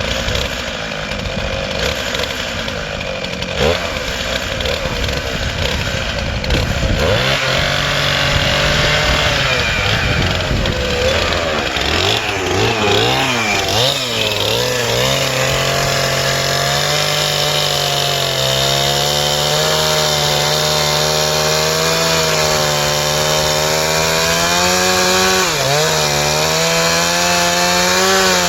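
Stihl MS311 two-stroke chainsaw on an Alaskan chainsaw mill, running unevenly at first, then about seven seconds in opening up to full throttle and holding a steady high pitch under load as it rips along a cottonwood log. The pitch wavers for a while before settling, with a brief dip near the end.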